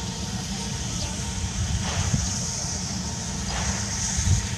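Steam locomotive working slowly, letting out a rushing chuff of exhaust about every two seconds over a steady low rumble and hiss.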